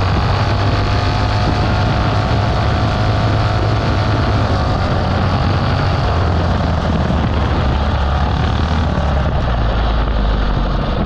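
Predator 212 single-cylinder engine on a mini bike running steadily at high revs under load during a speed run.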